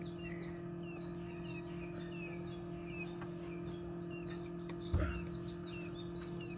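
Coturnix quail chicks peeping: many short, high chirps, each falling in pitch, several a second, over a steady low hum. A single thump about five seconds in.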